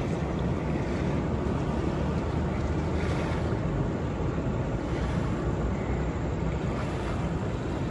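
Steady rush of fast-flowing river water, mixed with wind on the microphone.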